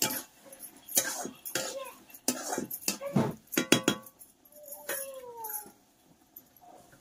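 A metal spoon knocks and scrapes against a steel kadai and steel utensils in a series of separate clinks, with a quick rattle of clicks about halfway through. A short falling whine is heard just after the middle.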